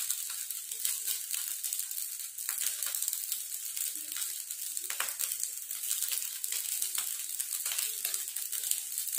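Fried rice and instant noodles sizzling steadily in a hot wok, with a few light clicks.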